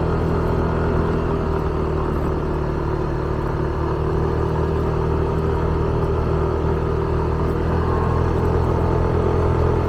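Motorbike engine running at a steady speed while riding.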